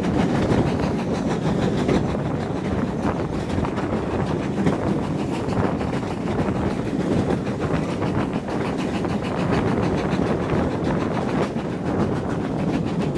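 Steam-hauled passenger train running along, heard from an open carriage window: a steady rumble and clatter of the carriage wheels on the rails, with GWR Modified Hall 4-6-0 No. 6990 Witherslack Hall working at the head of the train.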